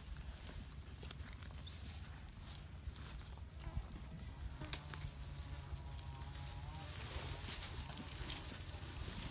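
Steady high-pitched chorus of insects, with a sharp click about halfway through and a few fainter knocks.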